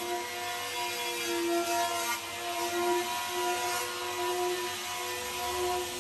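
Electric hand planer running over a foam surfboard blank: a steady motor whine with a hiss of shaved foam that comes and goes as the planer cuts.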